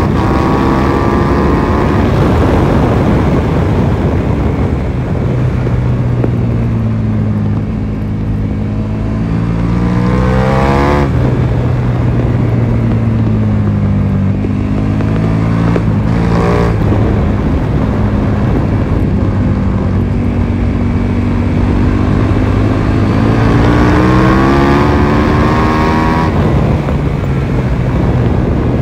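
KTM 1290 Super Duke R's V-twin engine at full track speed over a rush of wind. The engine note falls away at first, then rises and falls as the throttle comes on and off, with sharp breaks in pitch at gear changes about 11 and 16 seconds in and again near the end.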